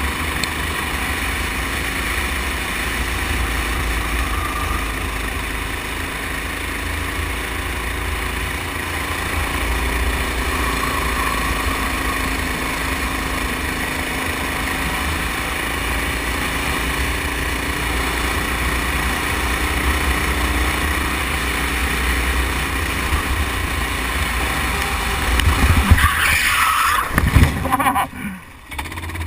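Rental go-kart's small engine running steadily under throttle, heard from on board with heavy wind rumble on the microphone. Near the end there are a few sudden loud knocks as the kart runs into a plastic crash barrier, with a brief drop in the engine sound.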